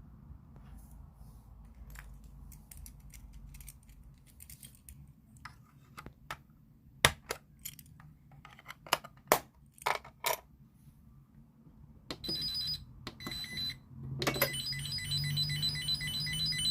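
A series of sharp clicks and knocks, then a Granit-5 security and fire alarm control panel's sounder going off in test: brief high beeps about twelve seconds in, then from about fourteen seconds a continuous, rapidly pulsing high alarm tone that gets louder.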